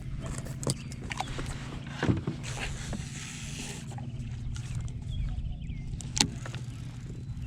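A steady low motor hum, with three sharp knocks or clicks and a brief hiss around the third second.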